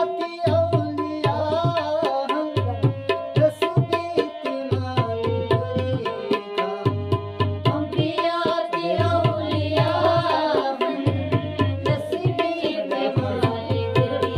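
Kashmiri ghazal on harmonium and tabla. A man sings over the harmonium's held reed chords, most clearly about eight to eleven seconds in. The tabla keeps a steady rhythm, with deep bass-drum strokes coming in groups about every two seconds.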